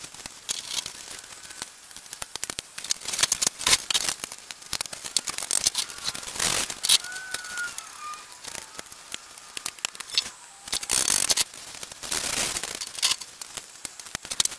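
Scratchy rubbing and rustling with scattered small clicks and knocks: a rag wiping a steel slide rod from a DeWalt DW733 thickness planer clean, and the rod and planer parts being handled.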